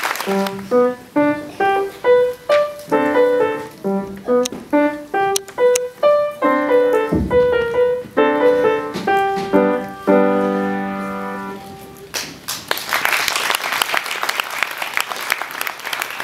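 Grand piano played solo: a short piece of separate struck notes, ending about ten seconds in on a held chord that dies away. Audience applause follows for the last few seconds.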